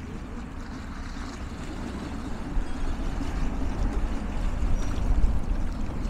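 Waterside ambience: choppy water lapping against a stone embankment, over a low, uneven wind rumble on the microphone that gets louder in the second half.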